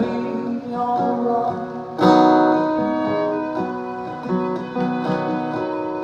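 Live acoustic country band playing an instrumental passage between vocal lines: acoustic guitar strumming with fiddle and keyboard. A strong chord is struck about two seconds in.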